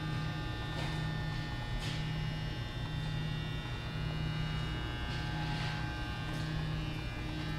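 Steady electrical hum with several thin high whining tones, and a low hum that swells and drops about once a second.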